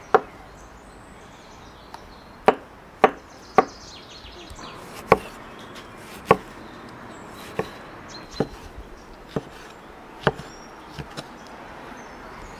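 A heavy cleaver chopping peeled tomatoes on a wooden cutting board. About a dozen sharp knocks of the blade hitting the board come at uneven gaps of roughly half a second to a second and a half.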